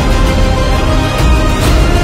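Loud background music with a heavy bass, running steadily.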